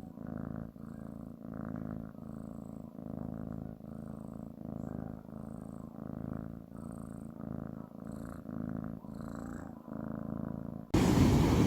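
Domestic cat purring close up: a low rumble swelling and easing with each breath, about three swells every two seconds. Shortly before the end it cuts off abruptly and a louder, steady rushing noise takes over.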